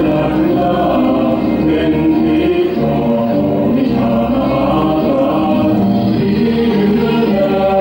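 A song with group singing, played loud and continuous.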